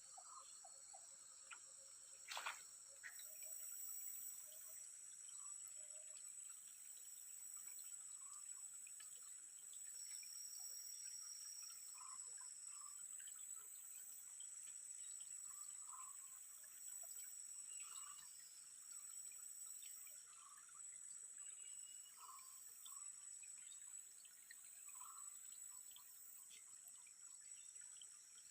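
Faint outdoor insect chorus: a steady high-pitched buzz from crickets or cicadas, with a short low call repeating about every two seconds. There is a single sharp click about two and a half seconds in.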